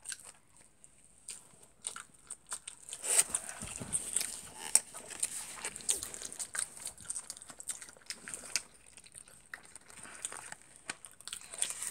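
Someone biting and chewing a burrito close to the microphone: soft wet smacks and small clicks, starting about three seconds in.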